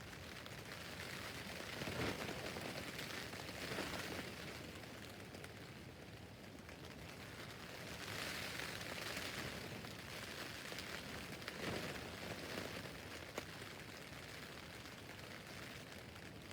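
Rain falling on a tent's fabric roof: a steady hiss of drops that grows heavier for a few seconds at a time, about two to four seconds in, around eight to ten seconds in and again near twelve seconds.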